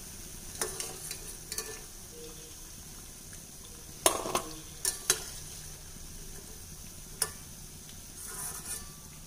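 Idli pieces deep-frying in hot oil with a steady sizzle, while a perforated steel skimmer lifts them out and clinks against the stainless steel pan several times, loudest about four and five seconds in.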